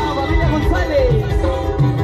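Loud music with a steady, repeating bass beat under a pitched melody that slides down in pitch about a second in.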